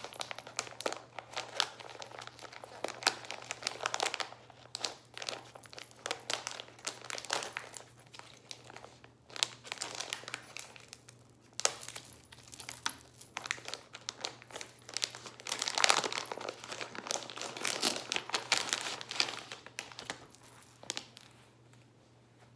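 Glossy plastic clothing pouch crinkling and rustling as hands tear it open and pull the boxer briefs out: irregular crackles, loudest about sixteen seconds in, dying away near the end.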